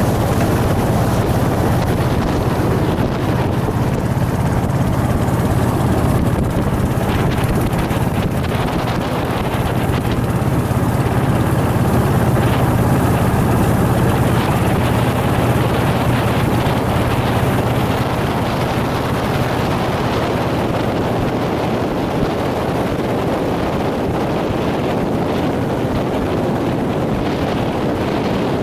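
Motorboat engine droning steadily at constant speed, with wind buffeting the microphone.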